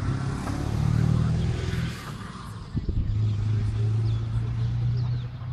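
A vehicle engine running with a steady low hum, briefly interrupted about three seconds in.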